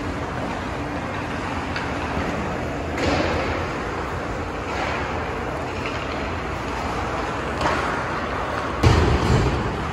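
Ice hockey play in an arena: a steady hiss of skates and sticks on the ice, with a few knocks from stick, puck or boards and a loud heavy thud near the end.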